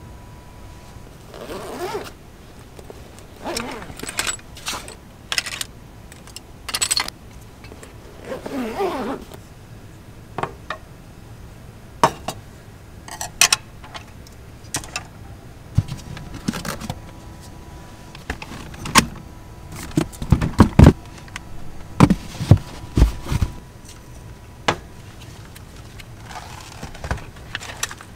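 Handling noises in a small car cabin: rustling, clicks and knocks as cooking gear and food packages are set out on a wooden tray table. A cluster of dull thumps about two-thirds of the way through is the loudest part.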